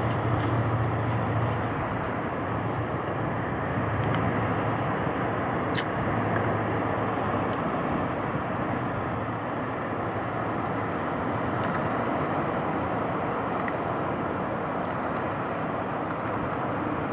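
Steady outdoor background noise throughout, with one sharp click about six seconds in.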